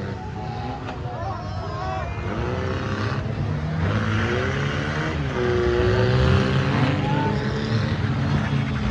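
Engines of several old demolition-derby cars running and revving as they manoeuvre, their pitch rising and falling.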